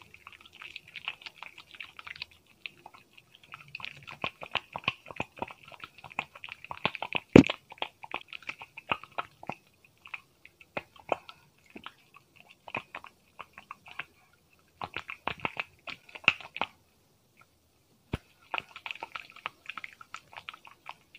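Close-miked crisp crackling and scratching in quick, irregular runs, an ASMR sound effect made with objects to imitate hair being lathered and scrubbed. There is one sharp louder crack about a third of the way in and a short pause near the end.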